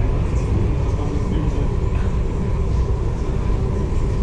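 Steady low rumble of a ferry under way, with a faint steady hum above it.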